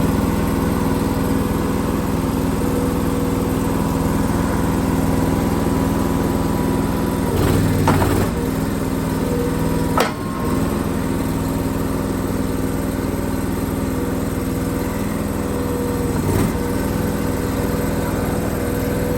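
Briggs & Stratton Vanguard 23 hp V-twin gas engine of a mini tracked skid steer running steadily just after starting. There is a brief swell about eight seconds in, a sharp click about ten seconds in, and a smaller bump near the end.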